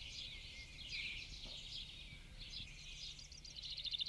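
Birds chirping and twittering, with a fast trill starting near the end, over a faint low hum.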